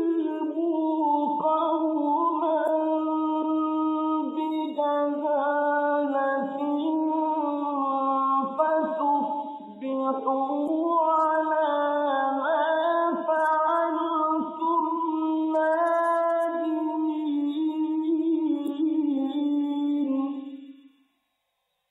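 A man's solo Quran recitation in the drawn-out mujawwad style: one high, sustained voice holding long notes with melismatic ornaments, pausing briefly about ten seconds in and breaking off about a second before the end.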